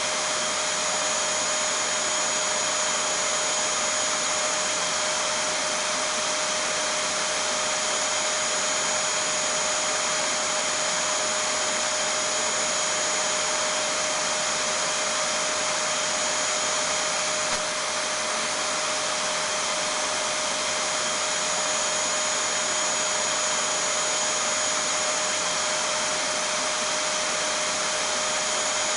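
Vacuum cleaner (hoover) motor running steadily, a constant rushing noise with a steady whine, played as white noise to lull a baby to sleep. A small click and brief dip in the sound a little past halfway.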